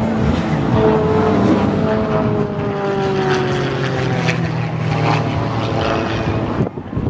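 Extra 330L aerobatic plane's six-cylinder Lycoming engine and propeller drone steadily, the pitch sliding slowly lower in the first few seconds. The sound drops away sharply near the end.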